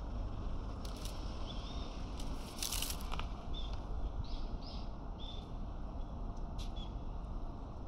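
Outdoor ambience: a steady low rumble with a few short, faint bird chirps scattered through, and a brief rustle about two and a half seconds in.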